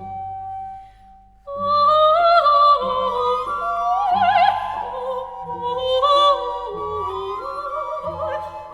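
Background music with a singing voice: one held note, then after about a second and a half a louder passage with sustained, wavering notes.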